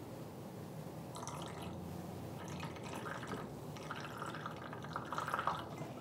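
Soy sauce pouring from a bottle in a thin stream into a stainless steel mixing bowl, trickling and dripping faintly onto minced garlic and ginger.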